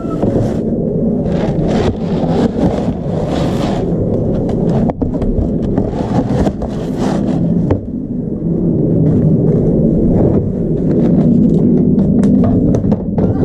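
Plastic scoop digging and scraping into grain in a clear plastic storage bin, with the bin being dragged, in two bouts of rustling and scraping about two seconds in and again around six to seven seconds, over a steady low rumble.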